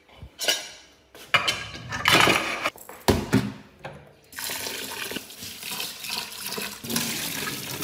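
Kitchen knocks and clatter of pots and containers being handled, then a tap runs steadily from about four seconds in, water for washing rice and lentils.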